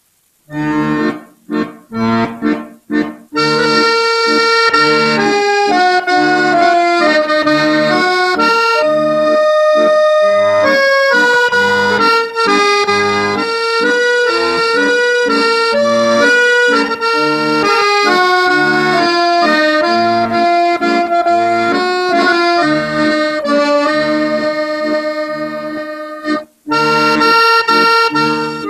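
Accordion music in a traditional folk style: a few short detached chords, then a flowing melody over a bass line, with a short pause near the end.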